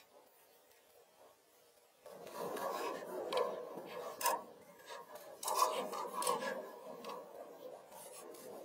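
Rustling and scraping of wood and leaves being handled, starting about two seconds in, with a few sharp clicks.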